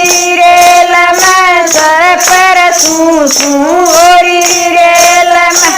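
Haryanvi folk dance song: a held, wavering melody with small turns over a steady jingling percussion beat, cutting off suddenly near the end.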